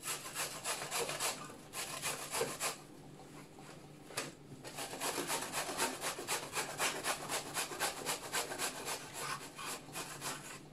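Peeled young zucchini being grated on the coarse side of a metal box grater: quick, rhythmic rasping strokes, with a short pause about three seconds in.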